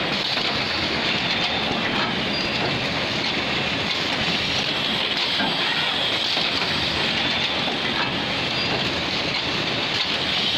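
Automatic terry towel sewing machines running: a steady, dense mechanical clatter that holds at one level, from many machines working at once.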